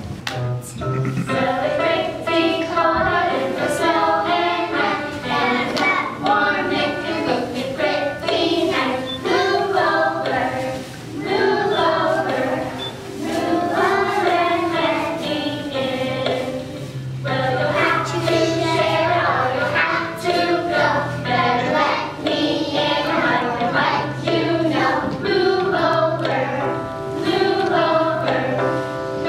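A group of children singing a song together with musical accompaniment that holds low notes beneath the voices.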